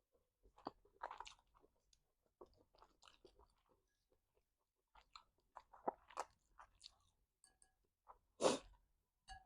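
Close-up chewing and crunching of food, with small mouth clicks, in two spells. Near the end comes a brief, louder rush of noise.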